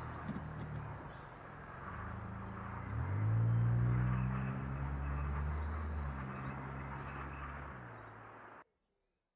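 A small hatchback's engine pulling away and accelerating: its note rises sharply about three seconds in, then holds and fades as the car drives off. The sound cuts off abruptly near the end.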